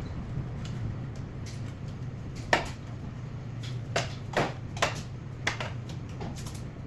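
Five sharp clicks and knocks spaced irregularly over a few seconds, over a steady low hum.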